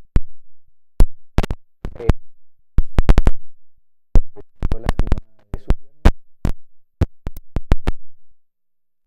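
Audio breaking up into sharp, irregular clicks and brief clipped fragments of a man's voice, with dead silences between them: a digital dropout glitch chopping up interview speech.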